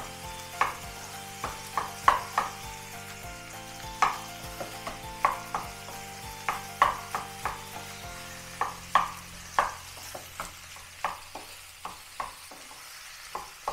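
Wooden spatula knocking and scraping in a non-stick frying pan as boiled potato chunks are stirred into a sizzling onion-tomato masala, with irregular sharp taps about once a second over a soft frying hiss.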